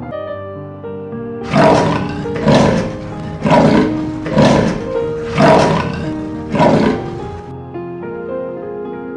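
A large animal giving six loud, rough calls about a second apart, starting about a second and a half in and ending near the end, over steady background music.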